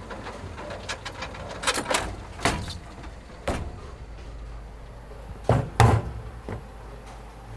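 A string of sharp knocks and bangs over a steady low hum. The loudest are two bangs close together about five and a half seconds in.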